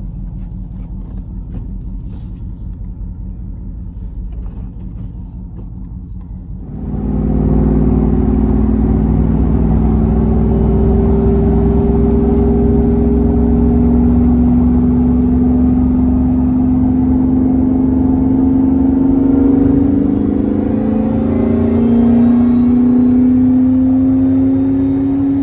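Vehicle engine and road rumble heard from inside the cabin; about seven seconds in the engine pulls harder and gets louder, its tone climbing slowly, with a brief drop and renewed climb near the end, like a gear change.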